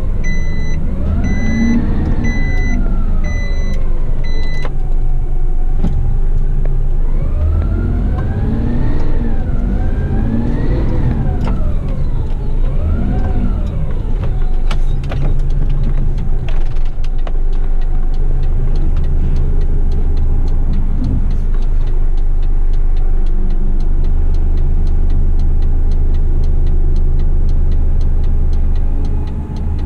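Front-lift garbage truck heard from inside the cab. The engine revs up and down several times while a pulsed reversing beeper sounds for the first few seconds. After that the engine runs steadily as the truck drives on, with a faint regular ticking.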